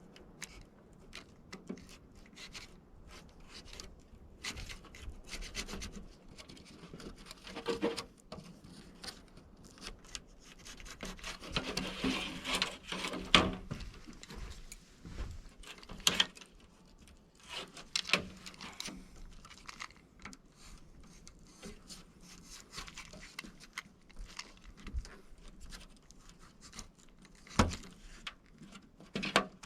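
Scraping and rubbing of screen mesh being worked into a window screen frame with a spline roller tool, with scattered sharp clicks and knocks of the tool and frame. A longer, louder stretch of scraping comes about midway, and there are single sharp knocks a little later and near the end.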